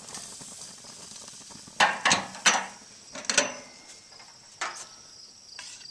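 Sharp metal clanks of a utensil against cookware on a hot grill, several close together about two seconds in, then a couple more spaced out. Crickets chirp steadily behind.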